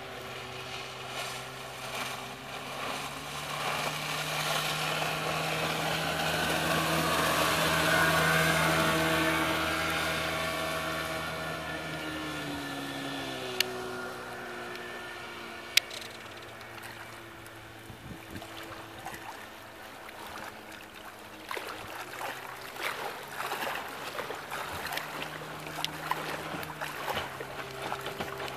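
Johnson 25 HP outboard motor running at speed on a Lowe 1448 aluminium jon boat. It swells to its loudest about eight seconds in and drops in pitch as it goes past, then fades. Later it comes back louder and rougher, with the splash of the wake.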